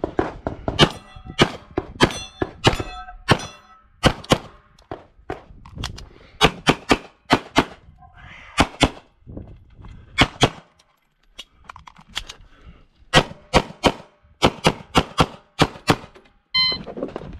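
Rapid pistol fire from a CZ Shadow 2, many shots in quick pairs and strings, with a short break about halfway through. Steel plates ring when hit near the start and again near the end.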